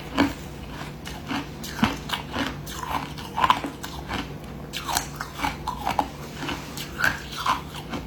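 A person chewing a mouthful of crushed ice: rapid, irregular crunches, several a second.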